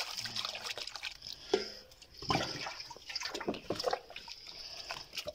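Water sloshing and splashing as a small cup is rinsed in a large aluminium pot of water and emptied, in irregular splashes.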